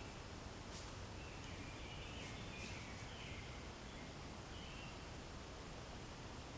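Faint outdoor background with a few short, distant bird calls and a couple of light rustles.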